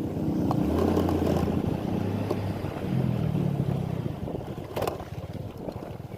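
An engine running steadily, its pitch stepping a little a second in and again about three seconds in, with wind noise on the microphone.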